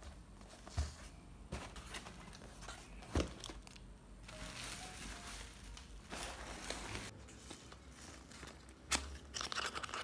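Cardboard parcels being unpacked by hand: several sharp knocks as the boxes are handled, stretches of tearing and crinkling of packing tape and paper, and cardboard flaps being pulled open near the end.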